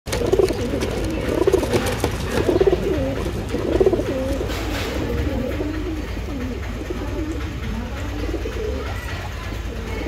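Domestic pigeon cooing: a string of low, warbling coos, loudest in the first four seconds and softer after, over a steady low hum.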